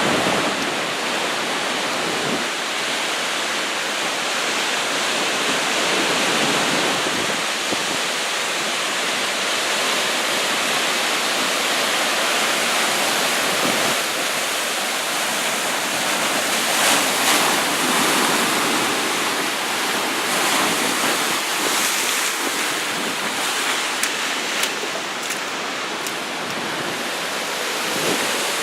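Heavy post-typhoon surf pounding the shore in a continuous roar, with wind on the microphone and a few brief sharper bursts in the second half.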